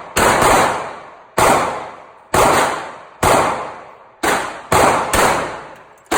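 Pistol shots from a Heckler & Koch USP in .45 ACP: about eight sharp reports at roughly one-second intervals, a few coming closer together, each trailing off in a long echo.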